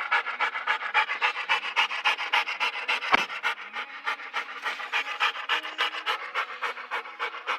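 A dog panting hard and fast in an even rhythm, about five breaths a second, with a single knock about three seconds in.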